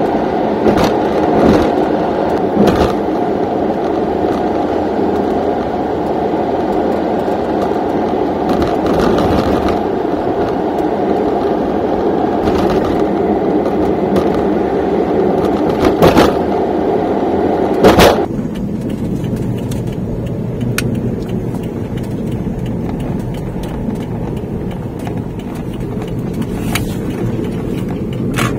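Steady road and engine noise from a moving vehicle, with sharp knocks now and then, the loudest two about 16 and 18 seconds in; after the second the noise turns duller.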